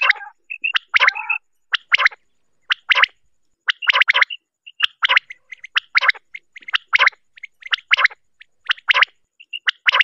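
Common quail calls from a recorded hunting lure: harsh, clipped call notes repeated about once a second, with short clear high notes between them.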